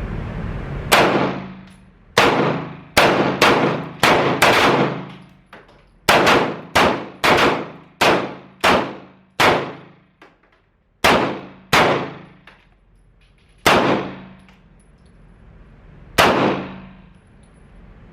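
Handgun fire from several shooters at once: about eighteen sharp shots in an uneven series, some in quick runs about half a second apart and others spaced out with gaps of one to three seconds, each followed by a short echoing decay.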